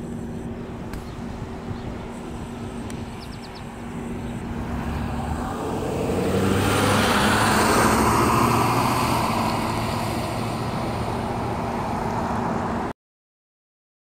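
A motor vehicle driving past on the road, its engine and tyre noise swelling from about four seconds in, loudest around seven to eight seconds, then slowly fading. The sound cuts off abruptly near the end.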